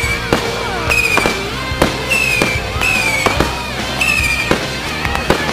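Fireworks going off, a rapid string of sharp bangs and cracks, over a high tone that repeats about once a second.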